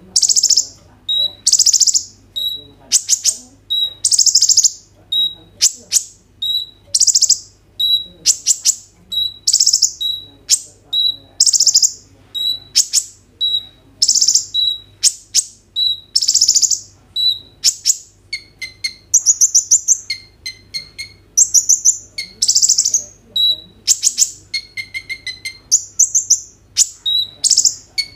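Male kolibri ninja (Van Hasselt's sunbird) singing loudly in full song: sharp, high-pitched chirping phrases repeated about once a second. After about 18 s it switches to rapid trilled phrases with lower notes mixed in.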